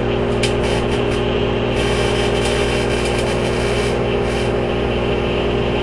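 Microwave oven running: the steady hum of its transformer and fan, with a few faint ticks, while a piece of wood heats inside it.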